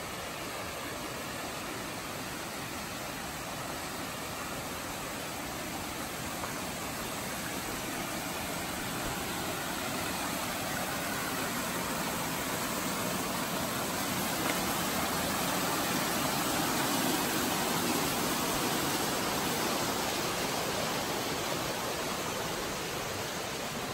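Rushing water of a small mountain stream cascading over rocks, a steady wash of noise that swells gradually, is loudest about two-thirds of the way through, then eases off.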